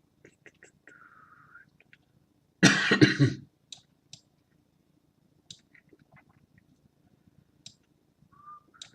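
A person coughs, a loud double cough about three seconds in, among scattered faint clicks.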